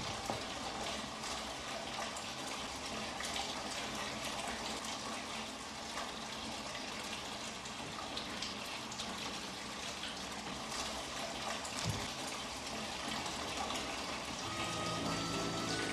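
Water running steadily from a kitchen tap, with a few faint knocks. Music comes in near the end.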